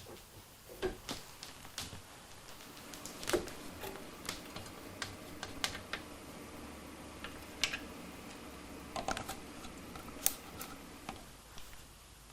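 Scattered light clicks and taps of small metal parts and tools being handled, irregular, a few to the second at most, over a faint steady hum that fades near the end.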